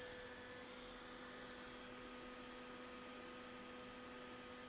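Faint steady electrical hum: a few constant tones over low hiss. A higher tone in it stops about half a second in.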